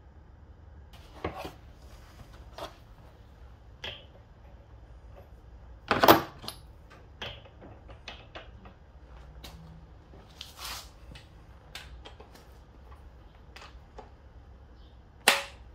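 Scattered metallic clicks and knocks of tools and engine parts being handled on a workbench, with two louder clunks, one about six seconds in and one near the end.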